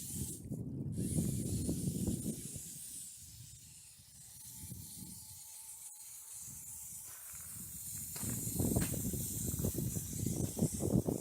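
Wind buffeting the microphone in gusts, strongest at the start and again near the end, over a steady hiss of flowing snowmelt runoff. A faint steady whine sounds for a few seconds in the middle.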